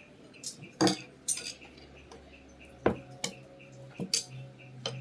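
Small metal parts and tools clinking and tapping against a sewing machine, about eight sharp separate knocks spaced unevenly.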